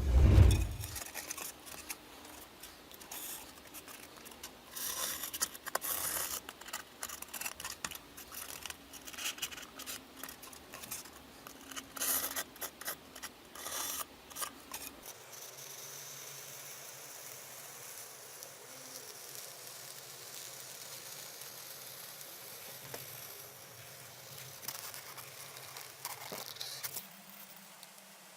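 Workshop hand work on a hammer: a heavy thud, then a run of quick, irregular scraping and clicking strokes. These give way to a fainter steady hiss.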